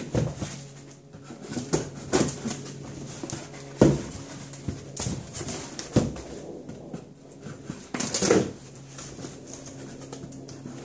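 Knife blade slicing through the packing tape and cardboard of a shipping box, with a series of sharp knocks and scrapes as the box is turned and handled on the bench. A steady low hum runs underneath.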